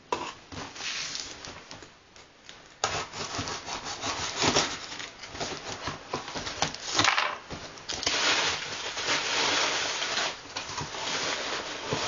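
Large cardboard shipping box being handled and opened by hand: irregular rubbing and scraping of cardboard, which gets louder and steadier from about eight seconds in.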